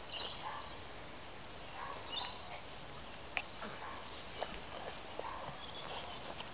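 A small dog collapsing in a fainting fit brought on by heart disease (cardiac syncope): light scuffling and scattered clicks in dry grass, with a few faint short whines.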